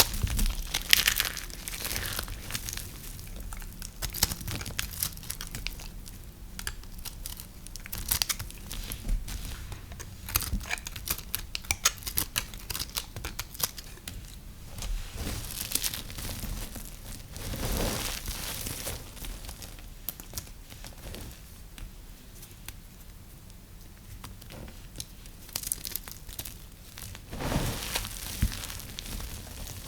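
Dry soap crumbling under a blade or fingers: a dense, uneven crinkly crackling with many small snaps, a few louder clusters standing out.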